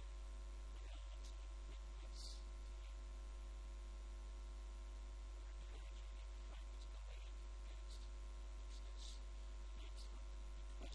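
Steady electrical mains hum with a series of overtones, and faint scattered ticks now and then.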